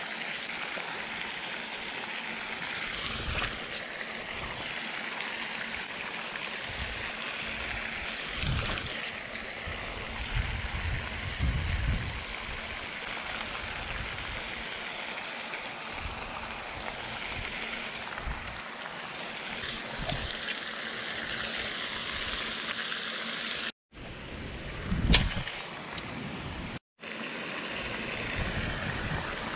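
Steady splashing hiss of a pond's spraying aerator fountain, with irregular low rumbles. The sound cuts out completely twice near the end, with a brief louder sound between the two gaps.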